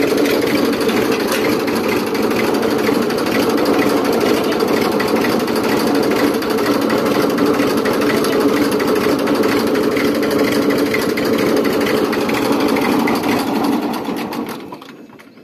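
Old Massey Ferguson tractor's diesel engine running steadily with a fast, even clatter, then dying away near the end.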